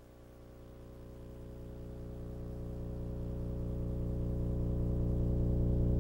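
Processed film static and noise run through analog delay and flanger effects, forming a hum of many steady tones over faint hiss. It swells steadily louder, with a fast even ripple.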